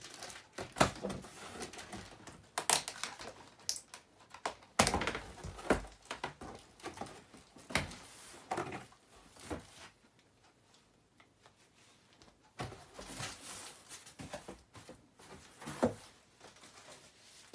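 A cardboard box being opened and unpacked by hand: irregular clicks, knocks and rustles of cardboard flaps and packaging, with a lull of a couple of seconds about two-thirds through.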